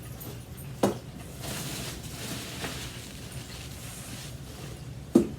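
Rustling and handling of packing peanuts in a cardboard box, with two sharp knocks, one about a second in and one near the end.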